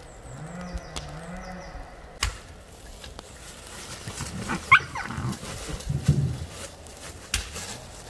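An animal calling in several short calls, with a couple of sharp knocks.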